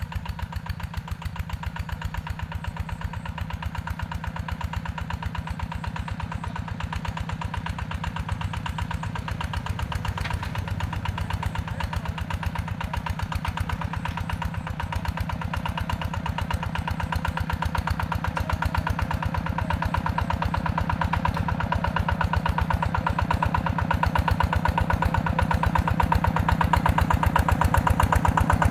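Yanmar TF120 walking tractor's single-cylinder diesel engine chugging steadily as it plows, growing louder toward the end as it comes closer.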